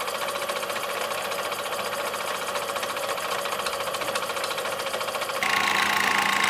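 Steady, very rapid mechanical clatter over a constant hum; about five seconds in it grows a little louder and changes character.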